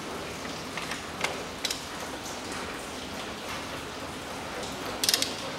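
Steady hiss of rain, with a few light tool clicks; near the end a ratchet wrench clicks briefly as it works on a spark plug.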